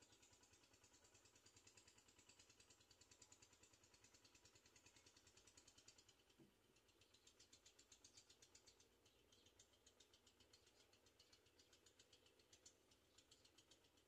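Near silence: faint outdoor ambience with a fast, high-pitched pulsing buzz.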